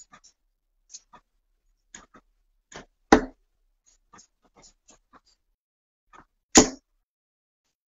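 Two steel-tip darts thud into a Unicorn bristle dartboard, the first about three seconds in and the second about three and a half seconds later. Faint soft clicks come in between.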